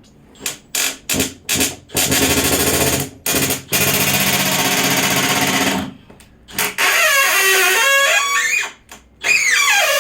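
Power drill driving into wood: a few quick trigger blips, then longer runs at full speed. In the later runs the motor's pitch sags and recovers as the bit or screw loads up.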